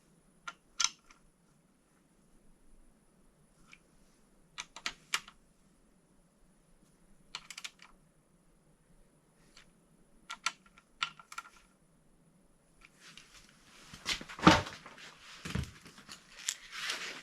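Scattered light clicks and taps of metal engine parts and hand tools being handled, turning into a busier run of knocks and rattling with two dull thuds in the last few seconds.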